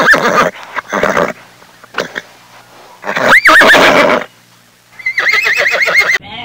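Horse neighing: a run of separate loud whinnies, the longest a little past the middle with a pitch that rises and falls, and the last ending in a fast quavering trill.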